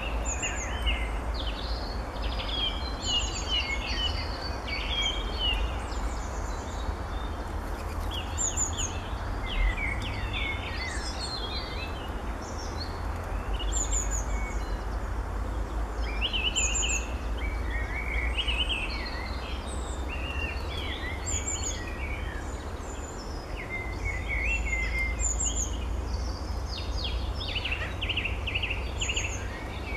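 Small songbirds singing and chirping throughout, with many short high trills, over a steady low background rumble.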